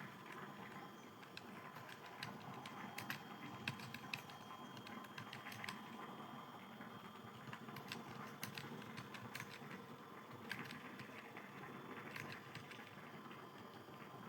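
Typing on a computer keyboard: faint, irregular keystroke clicks, several a second, with uneven pauses.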